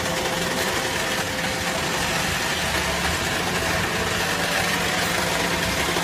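Hydraulic scrap metal baler's power unit running steadily, a constant mechanical hum with a faint steady whine over it.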